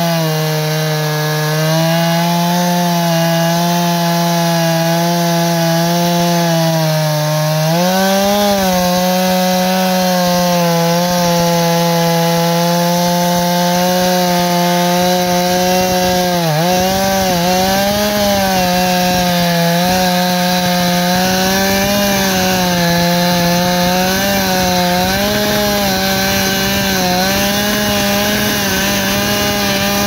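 Two-stroke chainsaw with a 36-inch bar and ripping chain, run in an Alaskan chainsaw mill at high throttle under load, ripping a cedar log lengthwise. The engine note holds steady, rises slightly about a quarter of the way in, and dips briefly near the middle as the chain bogs in the cut before recovering.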